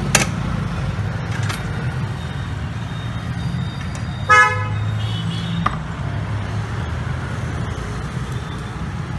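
Steady street traffic rumble, with a vehicle horn giving one short honk about four seconds in. A sharp click sounds just after the start.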